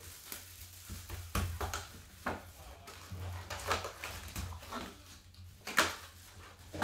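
Plastic shrink-wrap crinkling and a cardboard trading-card box being handled and opened, a run of short rustles and clicks. Foil card packs spill onto the tabletop with a louder slap near the end.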